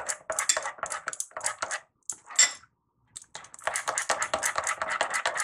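Metal spoon clicking against a glass bowl while stirring thin flour-and-jaggery batter: rapid clinks, several a second, with a short pause a little past halfway.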